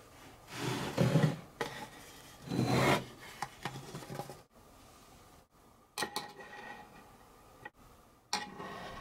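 Plywood board scraping as it is slid over a wooden workbench, twice in the first three seconds, followed by a few short knocks and clicks from parts being handled.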